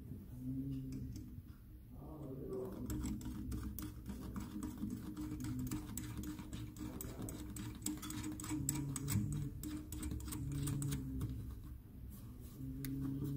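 Quick, irregular metallic clicking and ticking of an adjustable spanner working the fixing nut of a basin tap on its threaded stud, busiest in the middle stretch and easing off near the end.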